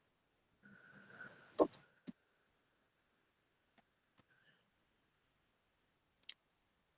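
A handful of short, sharp clicks scattered over a mostly quiet room, the loudest about one and a half seconds in.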